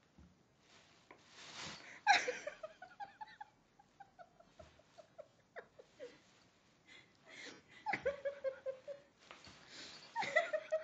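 A person laughing in choppy bursts, the loudest about two seconds in and again near the end, with breathy gasps between them.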